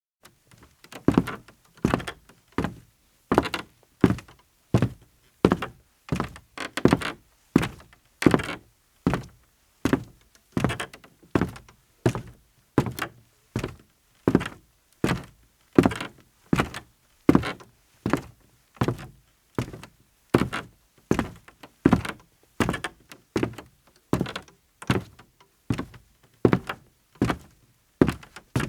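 Footsteps of a man in sneakers on a creaky wooden floor, about one and a half steps a second at an even walking pace, each step a dull thud.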